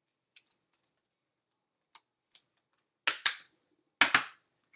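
A few faint clicks of handling, then five sharp clacks of hard objects being handled and set down: two quick pairs followed by a single clack at the end.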